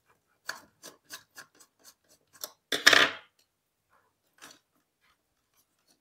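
Small screwdriver turning a terminal screw on a plastic switch board: a run of short scraping clicks, then a louder scraping clatter about three seconds in and one more click later.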